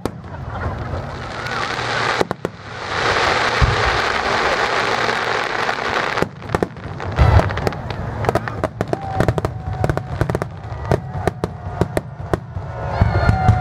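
Aerial fireworks shells bursting in quick succession, a series of sharp bangs and booms. A loud, dense rushing hiss fills the middle of the run, from about two and a half to six seconds in.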